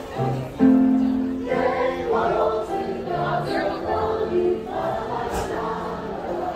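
A group of voices singing a holiday carol together in chorus, holding long notes.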